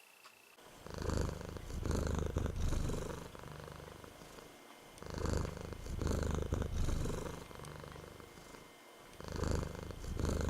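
Domestic cat purring close to the microphone: a low rumble that swells and eases in a repeating cycle of about four seconds, with a short break between cycles.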